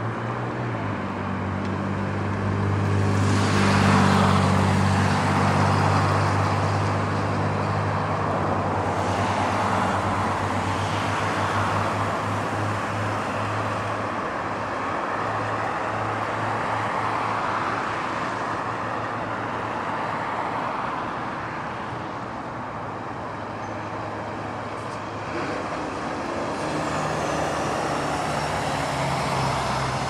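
Steady motor-vehicle engine hum with road-traffic noise that swells and fades, loudest about four seconds in.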